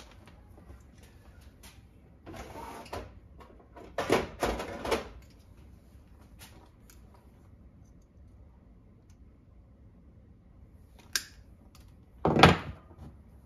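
Handling noises from plastic drip-irrigation tubing, nozzles and zip ties being worked by hand at a workbench. There are a few short bursts of rustling and clatter, the loudest about four seconds in and again near the end, with one sharp click shortly before the end.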